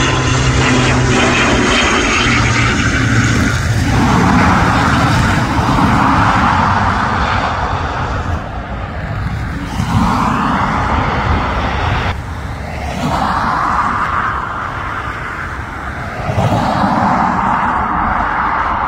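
Airliner engines running loud and steady close by, the noise swelling and easing every few seconds.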